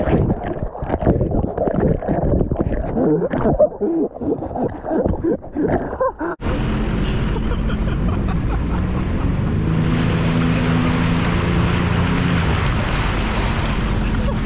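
Water sloshing and gurgling close by with irregular knocks and splashes. About six seconds in it cuts abruptly to a jet ski's engine running steadily under way, with wind and spray noise over its drone.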